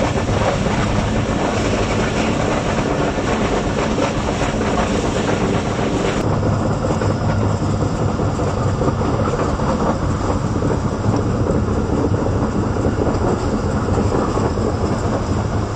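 Passenger coach of an express train running at speed on the rails: a steady rumble with a hiss over it. The hiss drops away abruptly about six seconds in.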